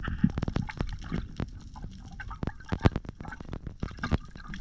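A speared fish thrashing on the spear against the rocks underwater: a rapid, irregular series of sharp knocks and clicks.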